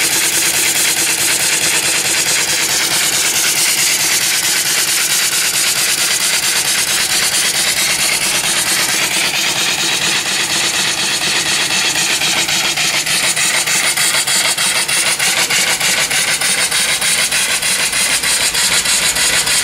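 Homemade single-cylinder steam engine, 3-inch bore and 4-inch stroke, running on boiler steam: its exhaust blasts out as a loud, steady, rapidly pulsing hiss.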